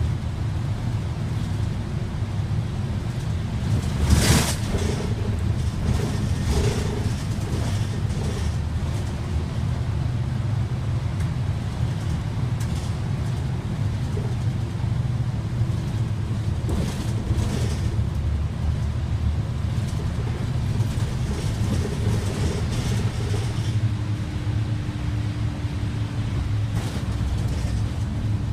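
Kyoto Bus coach running, heard from inside the cabin: a steady low engine and road rumble, with a sharp knock about four seconds in, a few lighter rattles, and a steady hum that joins near the end.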